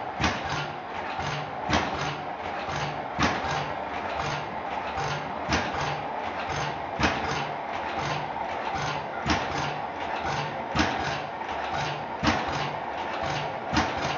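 Blaisdell engine-compressor running, with a sharp knock about every one and a half seconds over a steady mechanical hum and a low, even pulse two or three times a second.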